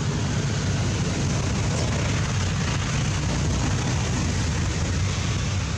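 Steady rushing noise, heaviest in the low range, with no distinct events.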